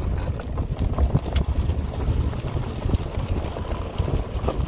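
Wind buffeting a phone's microphone outdoors: an uneven, gusting low rumble, with a few faint clicks.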